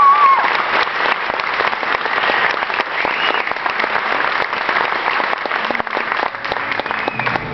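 Audience applauding in an auditorium at the end of a show choir's song, a dense patter of clapping throughout.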